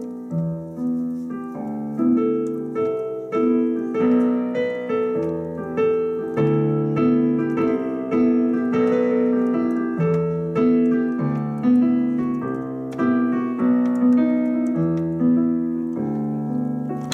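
Digital piano played by hand: an even, repeating pattern of notes, about two a second, over low chords that change every second or two.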